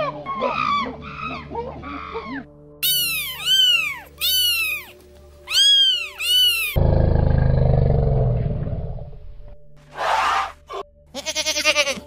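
Monkey calls, each rising then falling in pitch: quick chattering ones first, then four loud whooping calls. About two-thirds of the way in comes a long, low growl that fades away, then a short hiss, and near the end a goat's wavering bleat begins. Light background music plays underneath.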